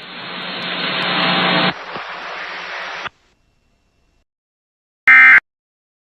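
Radio static hiss with a steady low hum, growing louder for a second or two, then dropping and cutting off about three seconds in. After a short silence, a brief, loud screech of Emergency Alert System SAME digital data sounds near the end: the short burst that marks the end of an alert message.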